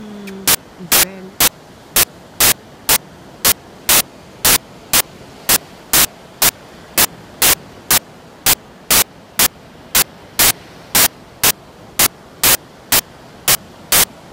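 Sharp bursts of static at a very even rate of about two a second, over a steady hiss.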